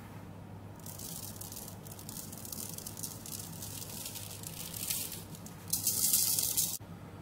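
Powdered sugar being shaken through a sifter: a dry, hissing rattle that starts about a second in, grows louder near the end and stops suddenly.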